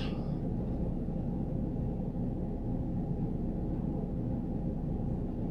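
Steady low background hum of room noise, with no distinct sounds standing out.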